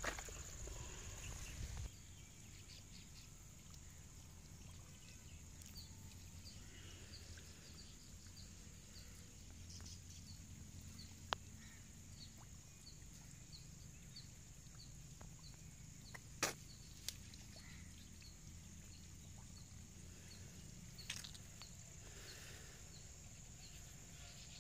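Faint rural outdoor ambience: a steady high-pitched insect drone with a small chirp repeating at a regular pace, and a few sharp clicks.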